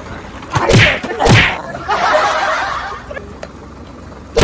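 Two sharp smacks about half a second apart, about a second in: water balloons bursting against people sitting in a pool of coloured water. About a second of splashing follows.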